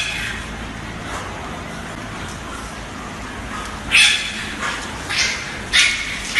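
Puppies yapping over steady room noise: a sharp, loud, high-pitched yap about four seconds in, then two shorter ones near the end.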